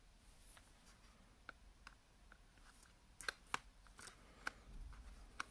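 Faint, scattered light clicks and taps of a metal dental sculpting tool on a plastic tray as modelling putty is spread over a wire, with the sharpest pair of clicks a little after three seconds in.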